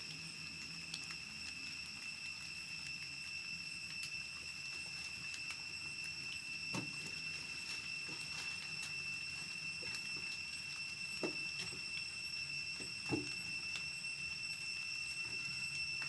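Quiet ambience with a steady high-pitched whine throughout, and a few short soft knocks, about three, in the second half.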